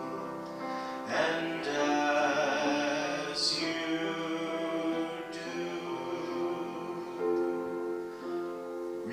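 Music: a solo voice singing slow, held notes with vibrato over instrumental accompaniment.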